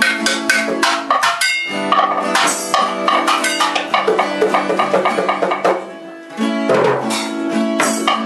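Live acoustic band playing: an acoustic guitar strummed over a hand-played set of small drums in a quick rhythm. The music drops away briefly about six seconds in, then comes back in full.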